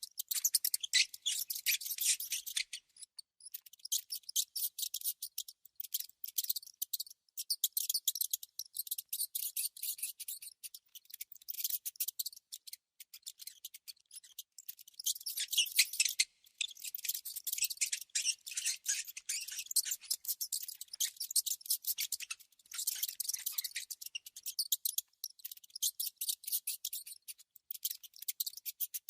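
A mouse making rapid, crisp scratching and clicking noises in long runs, broken by a few short pauses.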